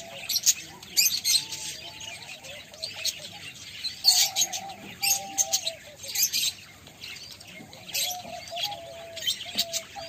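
A flock of parakeets chirping and twittering: a dense run of short, sharp chirps with lower warbling calls mixed in.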